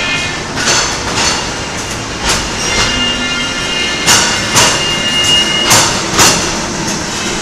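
Disneyland Railroad train rolling along the track, its wheels clacking over rail joints in pairs about half a second apart over a steady rumble. A thin high squeal runs through the middle.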